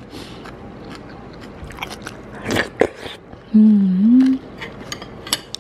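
A person chewing crunchy salted Thai eggplant (cà pháo) with rice, with scattered crunches that bunch up about two and a half seconds in. A short hummed 'mmm' follows a second later.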